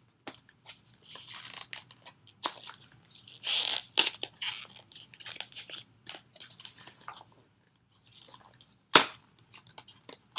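Packaging of the test wands being opened and handled: irregular bursts of crinkling and rustling with small clicks and taps, and one sharp click about nine seconds in that is the loudest sound.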